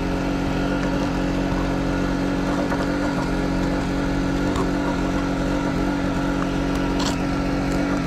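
Small engine running steadily at an even speed, a constant drone with a light click about seven seconds in.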